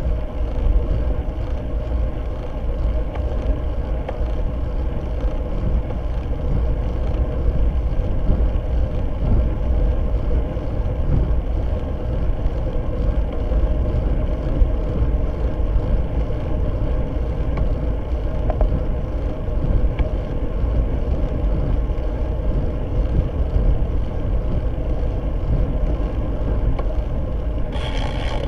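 Steady wind and road rumble from a road bicycle riding at speed, picked up by a bike-mounted camera's microphone, with a faint steady hum. A short hiss comes just before the end.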